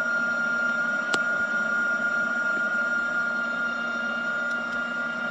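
FEIN Slugger AJMU 137 PMQW cordless 18 V magnetic drill running under load, its 13/16-inch carbide-tipped truck frame cutter boring through a double-layer hardened truck frame rail: a steady motor whine over the noise of cutting metal. A single sharp click sounds about a second in.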